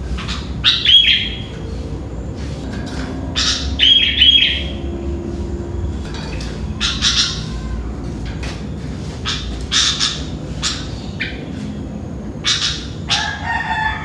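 Sooty-headed bulbul calling repeatedly: short whistled phrases every few seconds, loudest about one and four seconds in, over a steady low hum.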